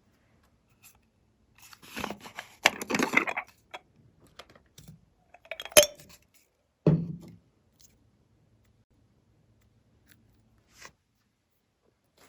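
Close-up handling sounds from slime making: crackly, tearing-like rustling for a second and a half, then a sharp click and a duller knock.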